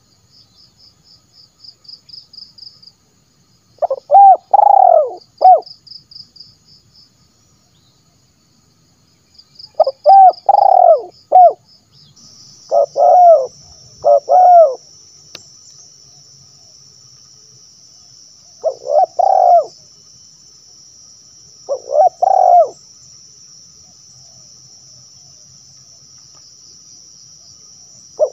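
Spotted dove (tekukur) cooing its sibero call in repeated short phrases of two or three notes, several times over. A faint high pulsing trill runs through the first part and gives way to a steady faint high buzz about twelve seconds in.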